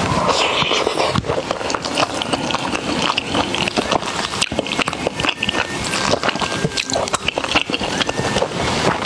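Close-miked eating sounds: chewing with dense, irregular crisp clicks and crackles and wet mouth noises.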